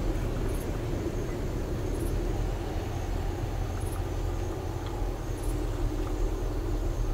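Car driving slowly along a road, a steady low engine and tyre rumble.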